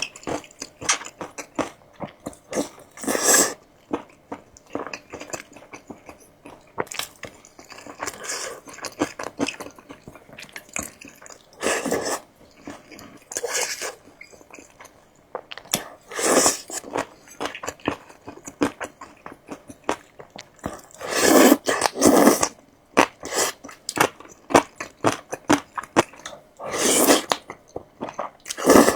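A person eating close to the microphone: steady chewing with quick crunchy clicks, broken by several louder bites or slurps lasting under a second each.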